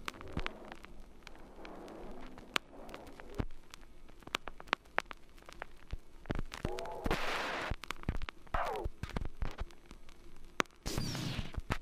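Irregular sharp clicks, crackles and pops. A short hiss comes about seven seconds in, a falling tone shortly after, and a louder rushing noise near the end.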